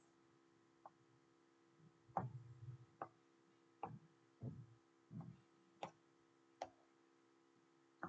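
Soft taps of a stylus on a tablet screen, about eight of them at irregular intervals, over a faint steady electrical hum.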